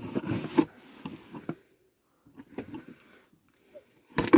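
Handling noises of a cardboard subscription box being opened: irregular rustling and light knocks for about a second and a half, a near-silent stretch with a few faint taps, then a sharp knock near the end.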